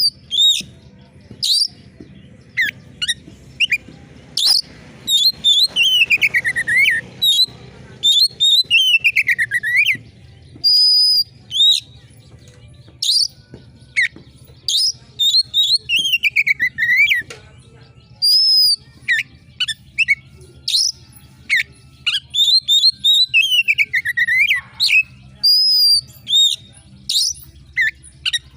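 Oriental magpie-robin singing non-stop with sharp, shrill calls. Short piercing notes and brief high whistles are mixed with several longer whistles that slide down in pitch.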